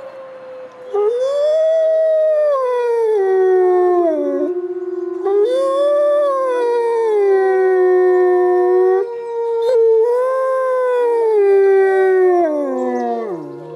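Wolves howling together: one holds a long steady note throughout, while another gives three howls that each rise and then fall away, a few seconds apart.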